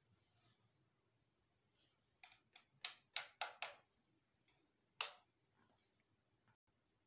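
Plastic toy pieces being handled, making sharp clicks and taps: about six in quick succession, then one more a second or so later. A faint steady high whine runs underneath.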